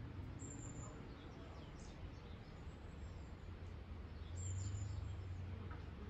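Small birds chirping: a few short, high calls and faint falling chirps, over a steady low rumble that swells briefly just past the middle.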